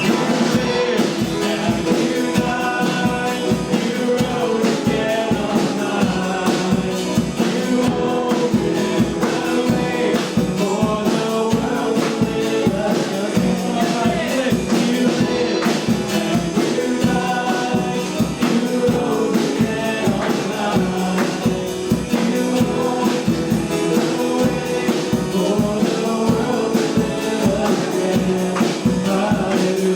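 Worship song sung with a live band: singing voices over instruments and drums keeping a steady beat.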